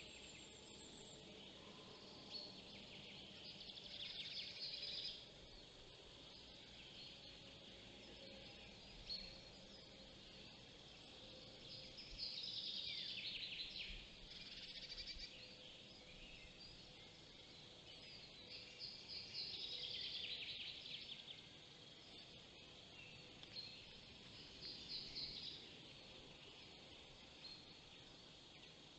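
Faint songbird song in a forest: a phrase repeated about every seven or eight seconds, each a quick run of notes that falls in pitch over one to two seconds.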